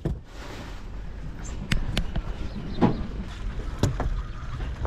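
Low steady rumble aboard a fishing boat, broken by several sharp knocks and clatters.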